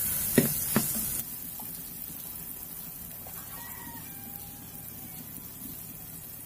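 A steel ladle stirs and knocks against a pot of onions, tomatoes and chillies frying in oil, with two sharp knocks in the first second. After that only a quieter steady sizzle remains, and a rooster crows faintly in the background near the middle.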